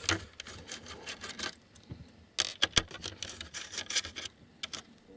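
Precision screwdriver turning out the small screws of a laptop's CPU heatsink: a run of irregular light clicks and ticks of the metal bit in the screw heads, with a brief lull about two seconds in.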